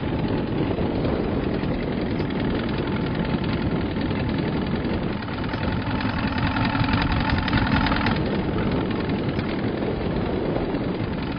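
Small boat's outboard motor running steadily at low speed.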